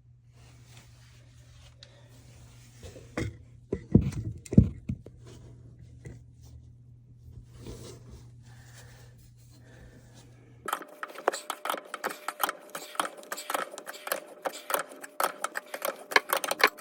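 Plumbing fittings and tools being handled under a sink: scattered light clicks and two sharp knocks, then, from about two-thirds of the way in, a fast, steady mechanical rattling buzz.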